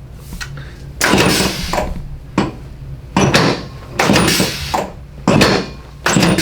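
A series of about five loud mechanical clunks and knocks, roughly a second apart, beginning about a second in.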